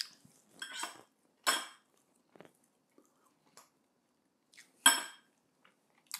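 Metal fork clinking and scraping against a plate while pulling apart a roasted chicken: a few separate strikes, the loudest, ringing one about five seconds in.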